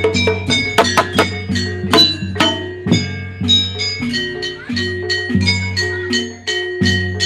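Javanese gamelan music for jaranan: metal keyed instruments struck in a quick even beat, their notes ringing, over a deep sustained low tone.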